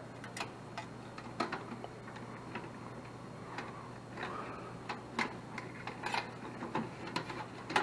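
Irregular light clicks and taps of wires and crimped connectors being pushed and routed behind the relay inside a sheet-metal air handler cabinet, over a steady low hum.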